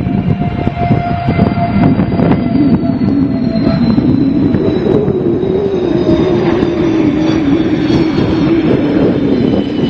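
JF-17 Thunder fighter's single RD-93 turbofan running loud as the jet rolls out along the runway after touchdown, drag chute deployed. A high whine slowly falls in pitch over a steady rumble.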